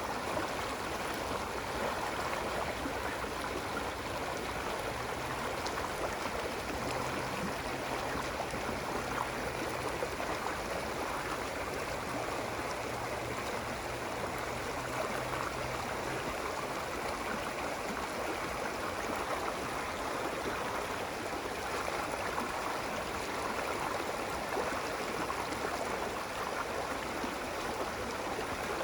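Running water, a stream flowing and splashing steadily. A faint low hum sits under it for a stretch in the first half.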